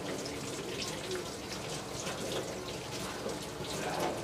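Sliced onions frying in hot oil in a pan, a steady crackling sizzle.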